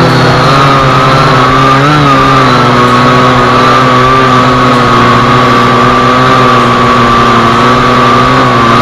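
Global Drone X183 quadcopter's electric motors and propellers whining steadily as heard through its own onboard camera, the pitch wavering briefly about two seconds in.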